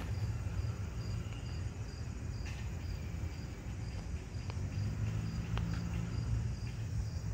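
A cricket chirping steadily, about two to three chirps a second, over a low steady hum, with a few faint clicks.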